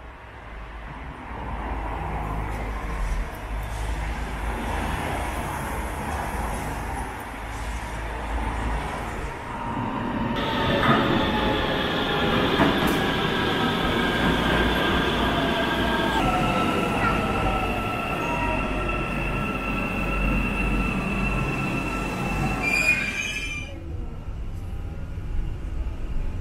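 Istanbul metro train moving through an underground station: a rumble, then from about ten seconds in several high whining, squealing tones that shift partway and cut off sharply near the end.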